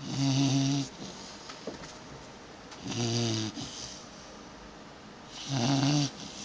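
Three-and-a-half-month-old golden retriever puppy snoring in its sleep: three snores, roughly one every two and a half to three seconds, each lasting under a second.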